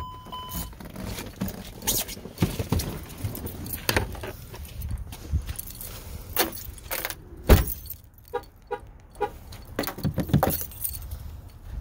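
A bunch of car keys jangling and clicking, amid scattered knocks and one sharp bang about seven and a half seconds in, over a low rumble.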